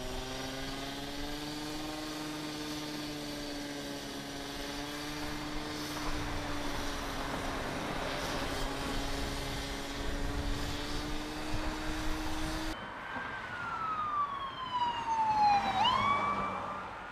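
A handheld power tool runs with a steady, slightly wavering hum. About thirteen seconds in, traffic passes with a siren-like tone that falls for about three seconds and then swings back up, louder than the tool.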